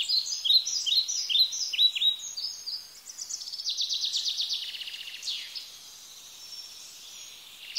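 A person whistling in imitation of bird song: a string of short, high, falling chirps about two a second, then a fast trill about three seconds in that fades away.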